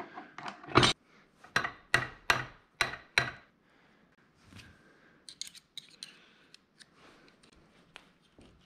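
Sharp metal clacks and knocks, about six in the first three seconds, as a splined shaft and gears are worked into a cast-iron NP435 four-speed transmission case, followed by faint small clicks of metal parts being handled.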